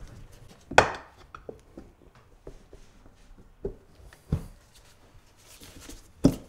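Steel tire irons clacking and scraping against the wheel rim and plastic rim shields as the bottom bead of a scooter tire is levered off the wheel. Several sharp knocks, the loudest about a second in.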